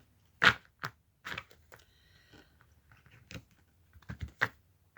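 Tarot cards being handled: a handful of short, sharp clicks and crackles at irregular intervals, the loudest about half a second in.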